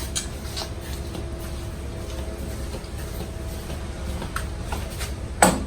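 Light clicks of ping pong table frame parts being handled and fitted together, then one sharp knock near the end as a piece goes into place.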